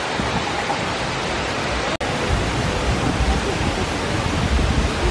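Steady rushing of man-made waterfalls pouring off the floating-mountain rockwork. The sound cuts out for an instant about two seconds in, and a low rumble joins it in the second half.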